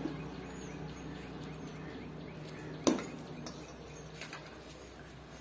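A steel ladle knocks once sharply against a steel cooking pot about three seconds in, with a short ring. A few lighter clinks of steel utensils come before and after it.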